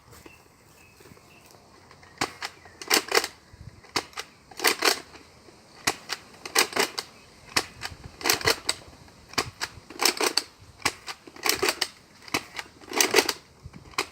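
Nerf Walking Dead sniper rifle, a bolt-action dart blaster, being cycled and fired over and over. Each round is a plastic clack of the bolt followed by the louder snap of the shot, about seven times, roughly every two seconds, starting about two seconds in.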